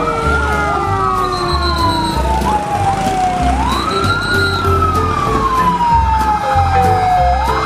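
Wailing siren, each cycle sweeping quickly up in pitch and then sliding slowly down; it starts three times, about every three and a half seconds. A low, evenly repeating beat runs underneath.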